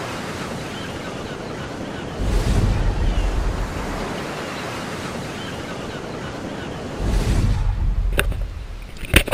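Ocean surf: a steady wash of water noise with two louder waves breaking, about two and seven seconds in. Near the end the surf gives way to a few sharp clicks or knocks.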